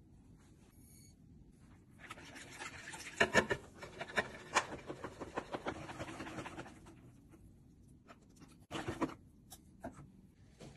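Wire whisk beating thick pancake batter in a plastic bowl: a quick run of scraping, clicking strokes starting about two seconds in and lasting about five seconds, then quieter stirring with one short burst near the end.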